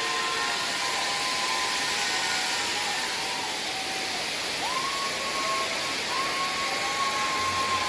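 Cold-fire pyrotechnic fountains hissing steadily, with a few long held tones sounding over the hiss.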